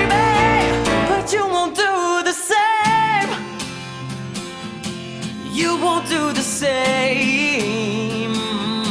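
Pop song mash-up with a sung vocal over acoustic guitar. The bass and beat drop away about a second in, leaving long, wavering sung notes over lighter guitar.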